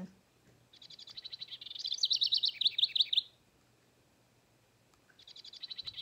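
A recorded house wren song played through the small built-in speaker of a children's bird-song book. It is a fast, high run of repeated notes building into louder rapid trills, heard once from about a second in and starting again near the end.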